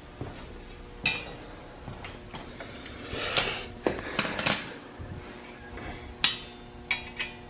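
Metal parts and hand tools clinking and clanking as an exhaust header is fitted to a Honda TRX400EX engine: a handful of sharp, separate metallic knocks spread out over several seconds.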